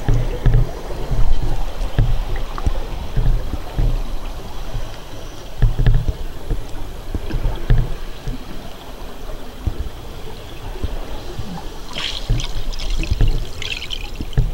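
Underwater sound on a scuba dive: irregular low thumps and rumbling, then a crackling burst of bubbles about twelve seconds in, typical of a diver's exhaled regulator bubbles.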